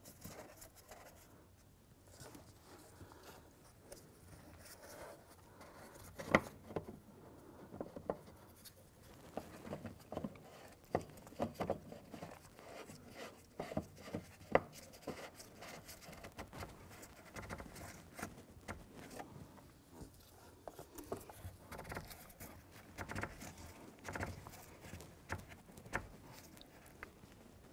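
Gloved hands turning a fuel pump lock ring by hand onto the fuel tank opening: light, scattered clicks and taps with faint rubbing, the sharpest about six seconds in and again around fourteen seconds.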